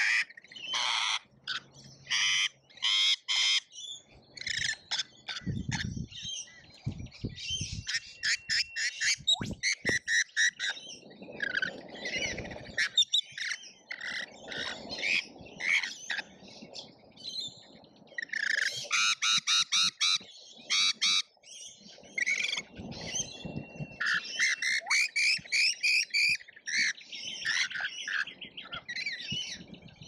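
A group of rainbow lorikeets screeching and chattering, harsh, rapid calls following one another almost without a pause.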